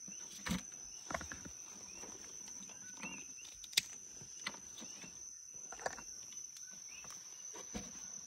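A steady high trill of night insects in the background, with scattered sharp clicks and rustles from handling a dragon fruit and pruning shears, the loudest click just before four seconds in.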